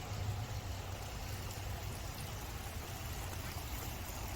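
Heavy rain falling steadily, with runoff water pouring from the roof.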